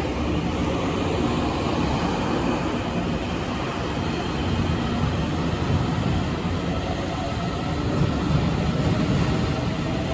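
Train running through Taipei Main Station, a steady rumble. A faint whine comes in about two-thirds of the way through and rises slightly in pitch.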